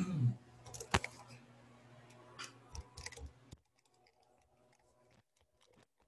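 Headset boom microphone being handled as the headset is put on: rubbing with a sharp click about a second in and a few more clicks between two and a half and three and a half seconds, then faint room tone.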